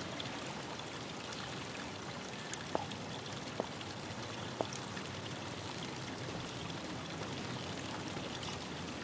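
Steady hiss of running water, with a few faint drip-like clicks a few seconds in.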